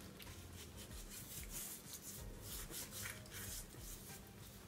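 Faint, irregular soft rubbing as hands work a dry seasoning rub into the skin of whole raw parrotfish.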